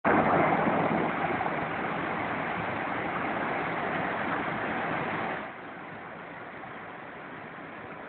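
Water released from a dam rushing and churning in white water, a steady roar. It is loudest at first and drops noticeably about five and a half seconds in.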